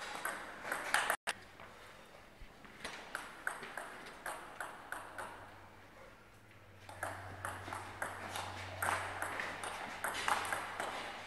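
Table tennis ball clicking sharply off bats and the table in quick rallies, with a run of evenly spaced bounces, about three a second, between the rallies. The sound cuts out for an instant about a second in.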